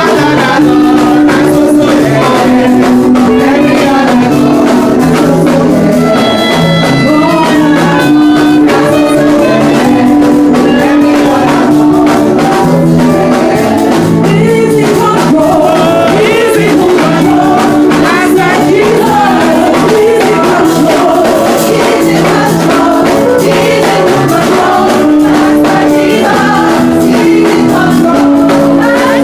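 Gospel singing with instrumental accompaniment and a busy tambourine-like percussion beat, loud and steady.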